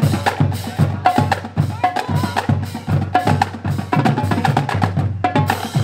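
Marching drumline playing a steady, driving beat on snare and bass drums with cymbals.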